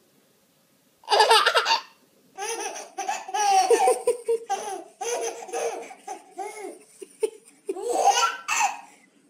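A baby laughing: after about a second of silence, one short laugh, then a long run of short repeated laughs that goes on for several seconds.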